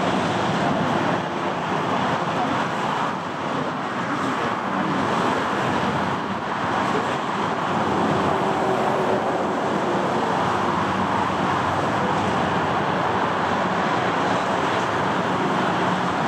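Boeing 747-8's four GEnx jet engines at climb power just after takeoff, heard from the ground as a steady jet roar with a few faint wavering tones in it.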